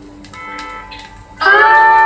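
Slide guitar music played back on a Teac A-2020 deck: a few soft held notes, then a loud sustained slide note about one and a half seconds in.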